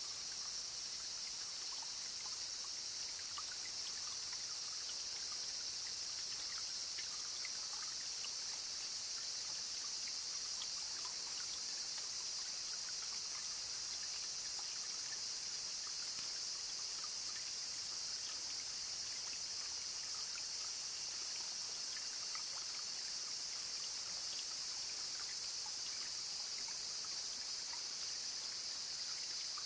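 A steady high chorus of insects over the soft trickle and scattered drips of shallow spring water running over plants and sheeting.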